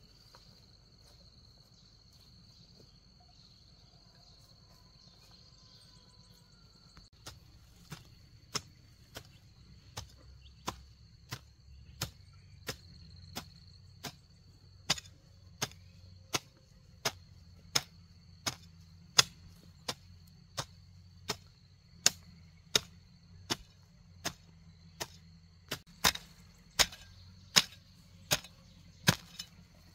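Metal hoe blade chopping into grassy soil in a steady run of strokes, about three every two seconds, starting about seven seconds in and getting louder. Under it is a steady high insect drone.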